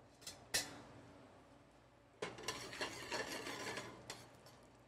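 A metal spoon stirring and scraping sliced almonds toasting in olive oil in a stainless-steel skillet. Two sharp clicks come first, then about two seconds of scrapes and clinks of spoon on pan.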